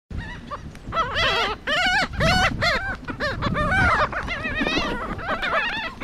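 A flock of gulls calling over one another: many short, wavering cries in quick succession, starting about a second in.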